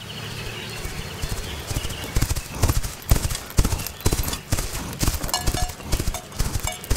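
Galloping horse hoofbeats sound effect, fading in at first and then growing into loud, irregular hoof strikes from about two seconds in.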